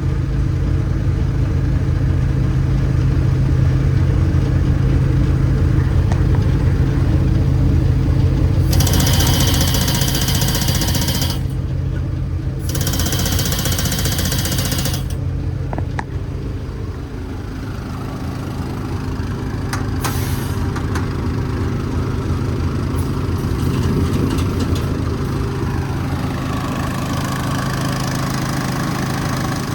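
Engine-driven air compressor of a Mi-T-M generator/compressor/welder combo unit running steadily while building air. Two bursts of compressed air hiss out, about nine and about thirteen seconds in, each lasting a couple of seconds.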